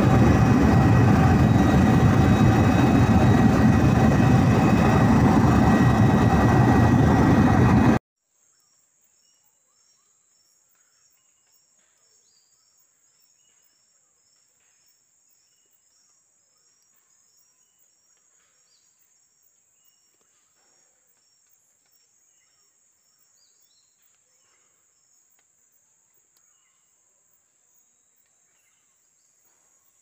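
Loud, steady aircraft engine drone with a high whine in it, heard from aboard. About eight seconds in it cuts off abruptly to faint rainforest insects: a steady high-pitched insect drone with a rapid train of chirps.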